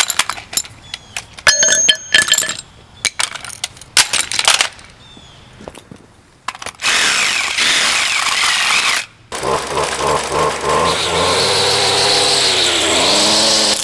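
Metal tools clinking and clattering, then a power tool running loudly in two long bursts, the second with its pitch repeatedly sagging and recovering as it works at the smoke detector's back cover.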